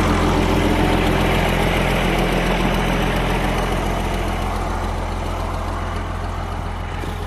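Engine idling steadily, slowly growing fainter.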